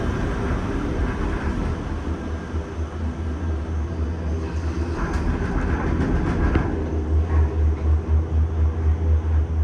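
Low rumble inside a Disney Skyliner gondola cabin as it travels, turning into a rhythmic pulsing about seven seconds in.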